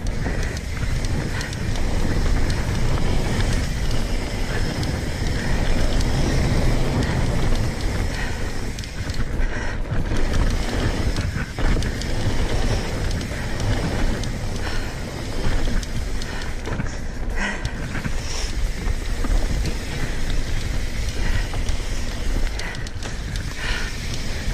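Wind rushing over the camera's microphone as a mountain bike rides fast down dirt singletrack, with the tyres rolling on the dirt and short knocks and rattles from the bike over bumps.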